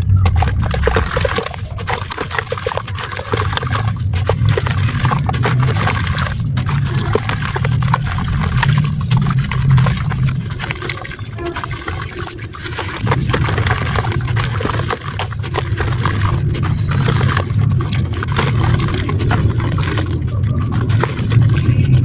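Dry clay being crumbled and dipped into muddy water: a dense run of small crunching crackles mixed with wet water sounds.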